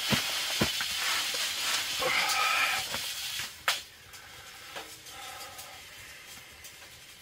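Rustling of clothing and cot fabric and creaking of a folding camp cot as a man lies down on it and settles. A sharp click comes just before four seconds in, then quieter movement with a few small clicks.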